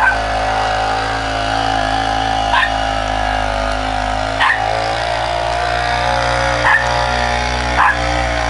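An engine running steadily, with a dog giving short sharp barks about five times.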